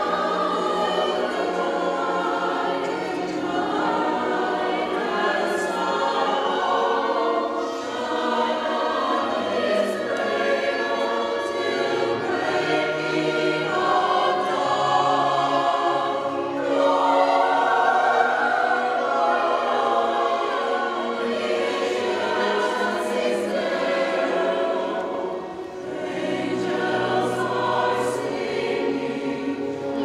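Mixed choir singing a sacred choral piece, accompanied by violins and clarinets.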